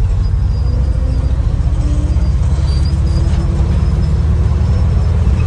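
1983 Chevrolet C6500 truck's engine running, heard inside the cab as a loud, steady low rumble.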